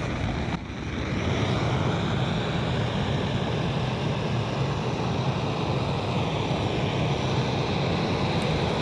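Handheld gas blowtorch burning with a steady, loud rush of flame as it is held to firewood to light it.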